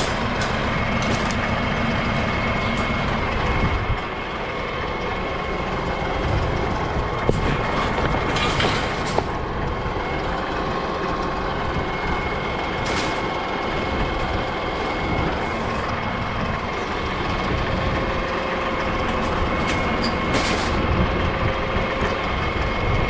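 A motor running steadily, with a thin steady whine above it and a few brief rattles.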